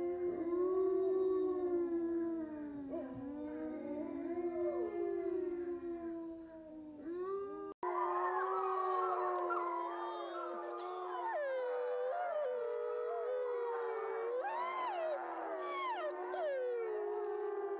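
Several wolves howling together in chorus, long overlapping howls rising and falling in pitch. The sound breaks off for an instant about eight seconds in, then goes on with one low howl held steady under higher, wavering ones.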